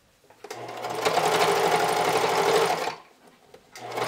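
Pfaff sewing machine stitching through lingerie fabric and elastic in two runs: it starts about half a second in, runs steadily for a little over two seconds, stops, and starts again near the end.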